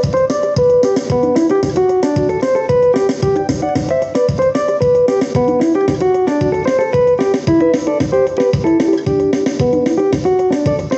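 Yamaha PSR-E473 keyboard playing a quick, repeating run of notes on a plucked-sounding voice, its tone made deeper by knob A twisted to the left.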